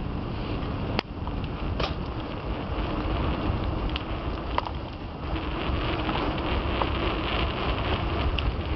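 Wind buffeting the microphone and the rattle of a mountain bike rolling over a dirt trail, with a few sharp knocks from bumps.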